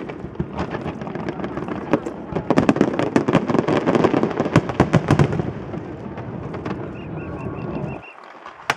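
Fireworks display: many shells bursting in rapid, overlapping cracks and bangs for about five seconds, easing into a steadier rumble, then falling away about eight seconds in.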